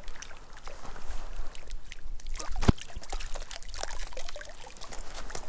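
Lake water splashing and trickling in small, irregular splashes, with one sharper knock about two and a half seconds in.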